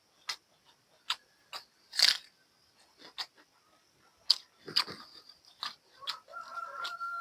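Close-up mouth sounds of someone eating buffalo meat on the bone: irregular wet chewing, smacking and crunchy clicks. Near the end a pitched, wavering animal-like call starts up.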